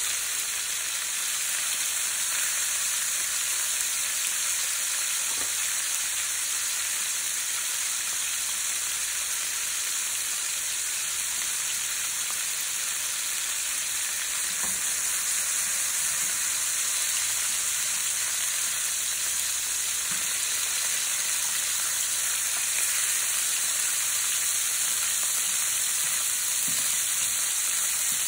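Chicken leg quarters frying in hot vegetable oil in a nonstick pan: a steady, even sizzle.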